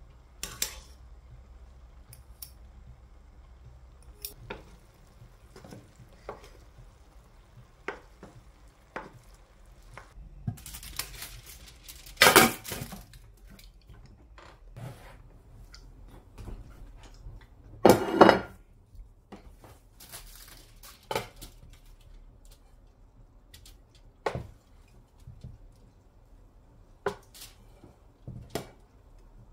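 Metal spoon and fork clinking and scraping against an aluminium cooking pot, with scattered light knocks. Two louder clattering bursts, about twelve and eighteen seconds in, come as the pot is covered with foil and its lid.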